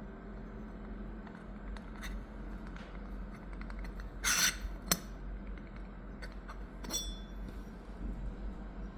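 Yixing clay teapot being handled: scattered light clicks, a short scrape a little before halfway, and a ringing clink about seven seconds in.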